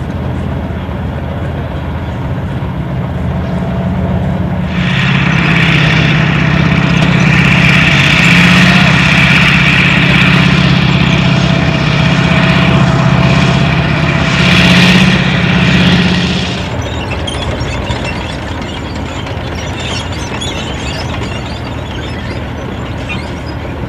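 Tracked armoured vehicle's engine running with a steady low drone. From about five seconds in it grows much louder, with a rushing noise over the drone, for about twelve seconds before dropping back.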